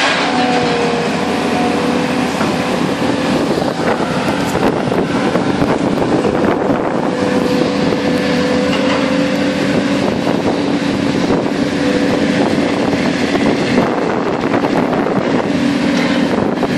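Scrap metal shear's power unit running steadily, a constant mechanical hum with a steady low tone, with some wind buffeting the microphone.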